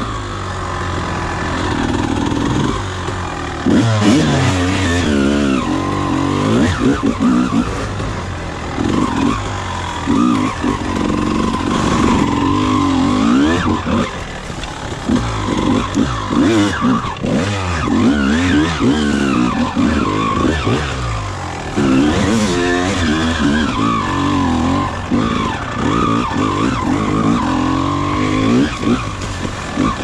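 1999 Honda CR250R's two-stroke single-cylinder engine revving up and down with the throttle as the dirt bike is ridden over rough trail, with repeated hard surges of revs.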